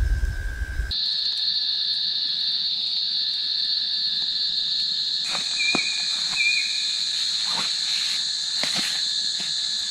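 Steady high-pitched trilling of a night insect chorus, starting about a second in, with a second, higher band joining about five seconds in. Two short chirps and a few light taps sound over it.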